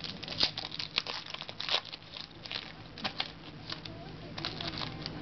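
Foil trading-card pack wrappers crinkling and tearing as baseball card packs are opened, in quick irregular crackles.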